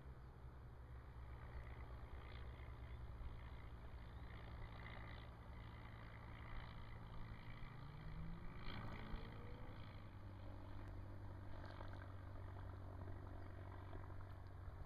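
Faint, steady engine drone of a light aircraft flying overhead, with an engine note rising in pitch about eight seconds in.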